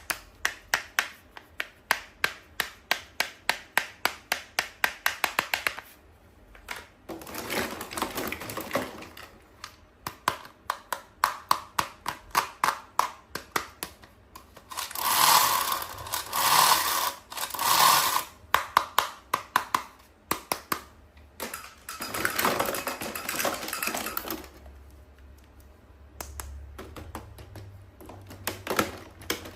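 Hands unboxing a toy: runs of quick fingernail taps on plastic packaging, about four a second, alternate with rustling and crinkling of the packaging. Three loud rustles come in the middle.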